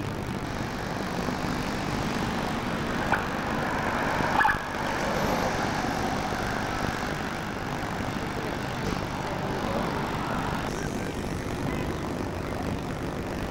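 Steady outdoor traffic noise, with a car driving past around the middle and a couple of short sharp clicks a few seconds in.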